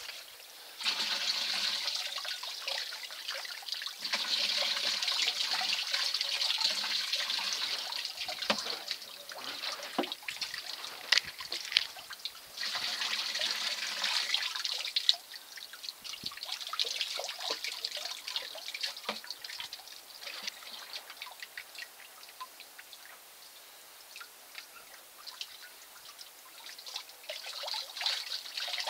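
Water poured from a plastic scoop down a wooden sluice box and splashing off its end into a plastic tub while the sluice is rinsed out. There are two long pours, the first about a second in and the second near the middle, then trickling and dripping, and another pour starts near the end.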